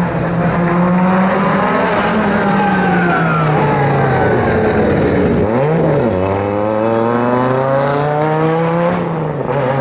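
Rally car engine running at high revs under load. Its note sinks over the first few seconds, breaks off and comes back abruptly about halfway through, then climbs steadily again.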